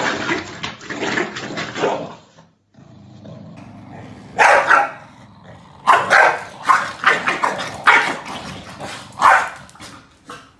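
Two corgis barking at each other in a squabble, in quick volleys. The barking breaks off briefly near the third second, then comes back as a string of sharp barks over the last few seconds.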